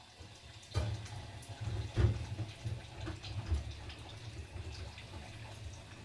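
Dishes being washed at a kitchen sink: water splashing as a steel cooking pot is scrubbed and rinsed, with clanks of metal against metal, the loudest about two seconds in.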